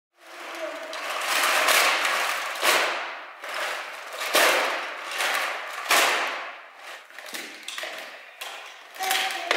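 Fabric play tunnel rustling as small plastic toys are shaken out of it and rattle onto the floor, with several louder clattering surges.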